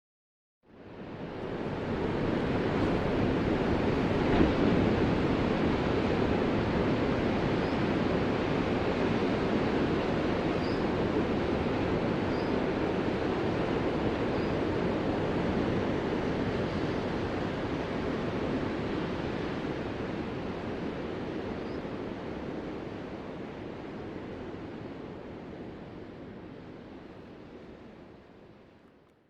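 Ocean waves breaking: a steady rushing wash of surf that starts about half a second in, then slowly fades toward the end.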